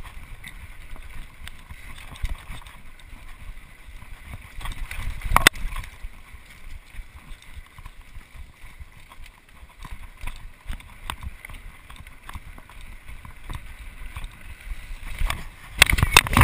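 Mountain bike running fast down a dirt singletrack: wind buffeting the microphone, tyres rumbling on the dirt and the bike rattling over bumps, with a sharp knock about five seconds in. Near the end, a burst of loud clattering and thumps as the rider crashes.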